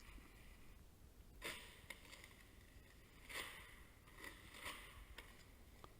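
Faint swishes of a 6-inch drywall knife drawn over setting-type joint compound (20-minute hot mud), feathering it out along a tape joint: three soft strokes a second or two apart over low room tone.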